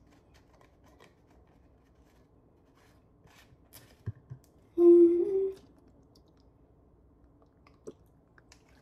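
A short, loud hummed 'mm' from a woman about five seconds in, rising slightly in pitch. Around it are faint clicks and taps from the plastic flip cap of a soy sauce bottle being worked open.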